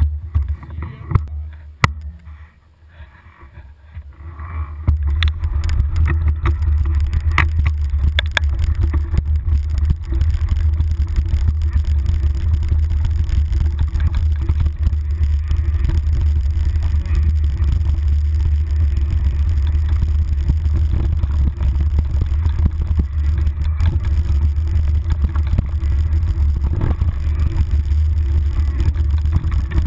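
Mountain bike descending a dirt trail, heard through a handlebar-mounted GoPro: a loud, steady low rumble of wind and trail vibration sets in about five seconds in. A few sharp clicks and knocks from the bike come before it.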